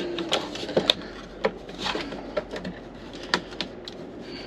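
Irregular plastic clicks and knocks as electrical plugs are pushed and seated into the back of a truck's gauge cluster.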